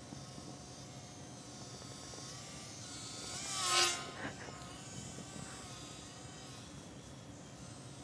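Micro Cessna 9g RC plane's small electric motor and propeller buzzing in flight, growing louder as the plane passes close about four seconds in, its pitch bending as it goes by, then fading back to a faint buzz.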